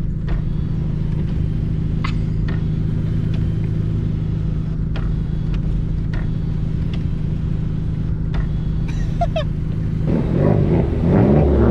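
2018 Honda Civic Type R FK8's turbocharged 2.0-litre four-cylinder with a catless straight-pipe downpipe, heard from inside the cabin, running steadily at cruise, then revving up and growing louder near the end as the car accelerates.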